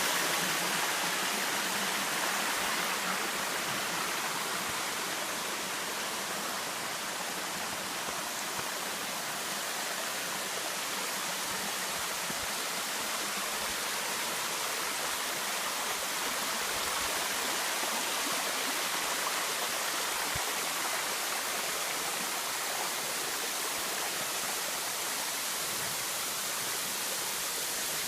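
Mountain waterfall cascade, a steady rush of falling water.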